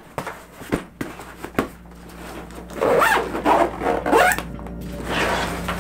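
Zips of a camera backpack being pulled shut in several quick strokes, after a few short knocks of handling the bag.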